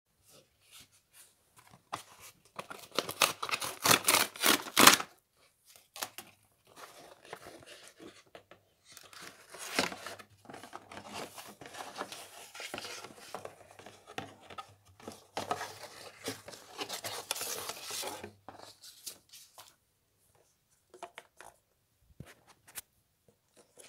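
Cardboard mailer packaging being torn open and handled. A run of loud ripping strokes comes about two seconds in, then a long stretch of cardboard scraping and rustling as the boxed CD is worked out of the carton, and a few light knocks near the end.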